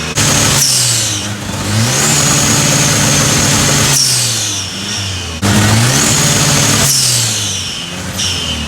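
Chevrolet Opala engine being revved repeatedly. The pitch jumps up sharply, holds at high revs for a second or two, then drops back toward idle before the next rev.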